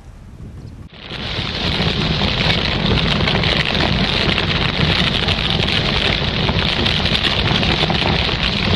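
Fire sound effect: a loud, dense crackling hiss that cuts in suddenly about a second in and runs on steadily, after faint wind on the microphone.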